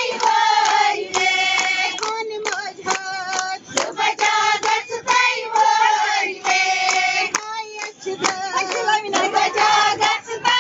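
Kashmiri wedding song sung by a group of voices, with rhythmic hand clapping.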